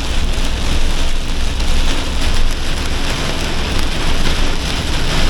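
Torrential rain drumming hard and steadily on a campervan's roof and windows, heard from inside, with a steady low rumble underneath.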